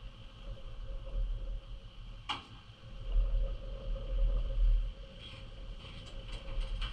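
Low, uneven rumble that swells in the middle, over a faint steady hum, with one sharp click a little past two seconds in.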